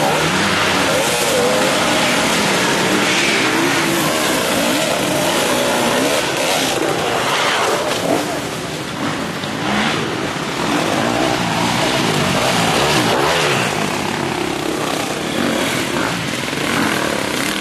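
Enduro dirt bike engines revving hard and unevenly under load on a steep dirt climb, the pitch rising and falling as the throttle is worked.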